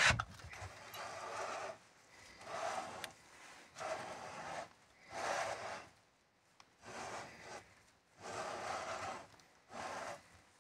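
Repeated soft rubbing and scraping noises, one every second or so, as a gloved hand turns a small 49cc two-stroke engine over on a tabletop; the engine is not running.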